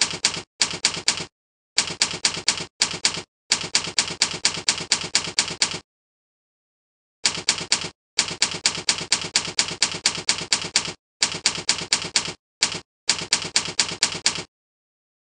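Typing: quick runs of sharp key strikes, about five or six a second, broken by short pauses, with a longer pause about six seconds in.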